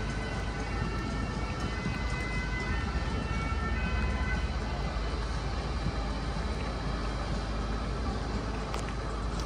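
Steady low outdoor rumble, with a faint distant siren sounding through the first half.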